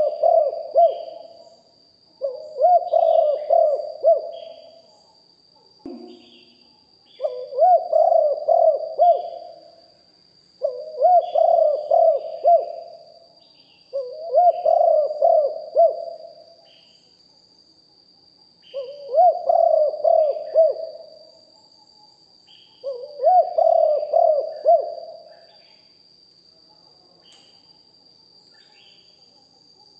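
Spotted dove cooing: seven rhythmic phrases of about two seconds each, one every three to four seconds, then a pause of about five seconds near the end. A faint steady high whine runs underneath, with small high chirps between the phrases.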